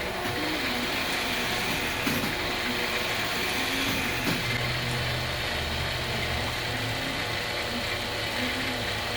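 Monarch EE turret lathe running under power: a steady motor and gearing hum, with a couple of short clicks about two and four seconds in.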